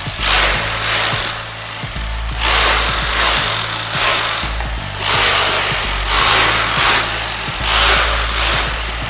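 Stanley 800 W 26 mm rotary hammer in hammer-only mode, chiselling into a masonry wall: loud hammering rattle in repeated bursts of one to two seconds with short pauses between them.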